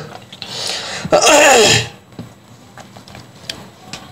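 A man sneezes loudly once, about a second in, after a softer breathy intake.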